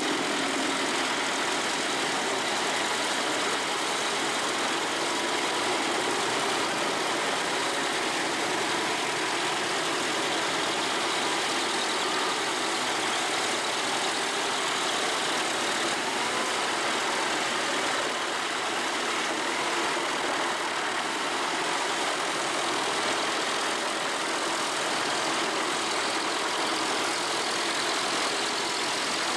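A 550 hp industrial wood shredder running steadily: a continuous, even machine noise with no pauses or separate impacts.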